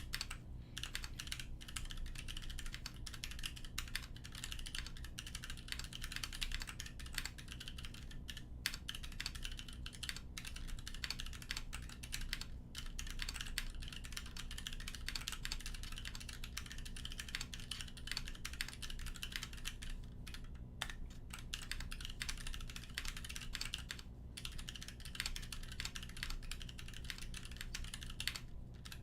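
Continuous typing on a custom mechanical keyboard with Kailh Box Royal tactile switches, a polycarbonate plate and GMK ABS keycaps: a dense run of keystroke clacks, broken by a few brief pauses.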